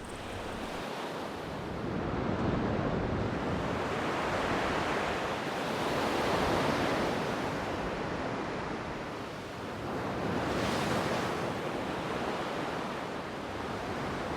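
Ocean waves washing onto a shore, a steady surf hiss that swells and falls back with each wave, about three swells over the stretch.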